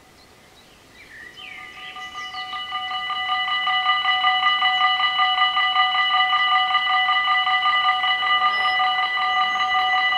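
Dutch level-crossing warning bells (two electric crossing bells) start ringing about a second in. They make a rapid, continuous metallic ringing that swells louder over the next two seconds and then holds steady, warning that a train is approaching and the barriers are about to close.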